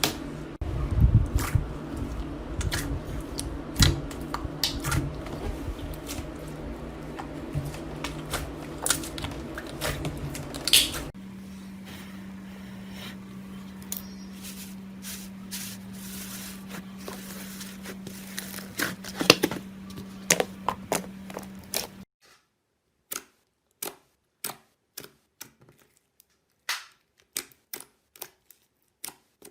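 Slime being handled and pressed: a run of sharp clicks and small pops, over a low steady hum. About two-thirds of the way through the hum drops out, leaving separate crisp clicks, one or two a second.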